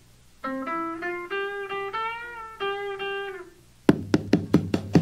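Guitar played between takes: a short run of single picked notes with a slight bend on a held note, then about seven quick strummed chords in the last second.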